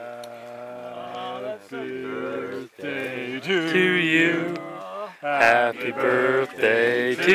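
A man's voice singing or chanting in long held notes that step up and down in pitch, getting louder about halfway through.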